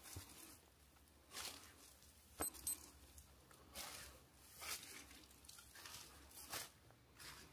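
Faint footsteps of a hiker walking on a forest trail, a short scuffing step about once a second, with a sharp click a little over two seconds in.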